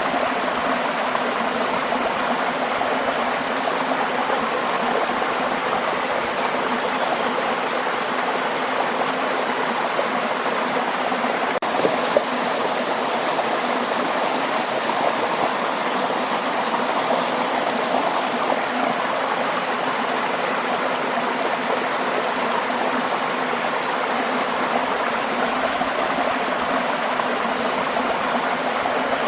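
Waterfall: a steady rush of falling and splashing water, with a single faint click about twelve seconds in.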